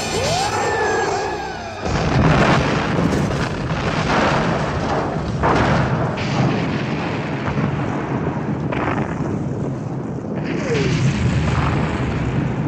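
Loud action-film sound effects: a heavy rumble with repeated booms and crashes, and a short gliding screech in the first two seconds.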